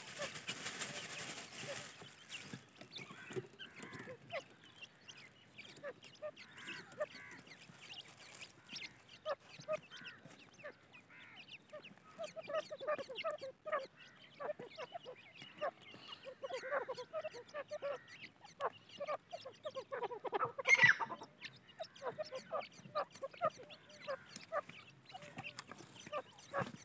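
Grey francolin hens and chicks calling as they forage: a stream of many short calls, with one louder, rising call about three-quarters of the way through. It opens with a rustling hiss as soil is poured from a plastic bag.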